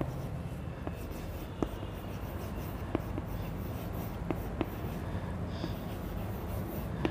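Chalk writing on a blackboard: faint scratching of the chalk, with a handful of sharp taps as it strikes the board.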